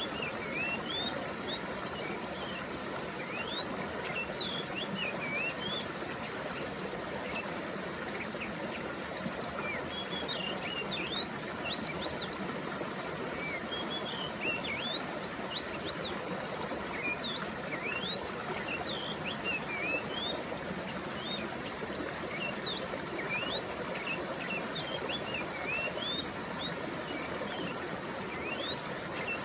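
Running water of a stream giving a steady rush, with many small birds chirping over it in quick, overlapping calls.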